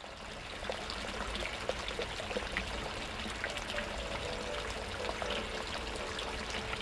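Water pouring from the end of a pipe and splashing: a steady gushing stream with many small splashes.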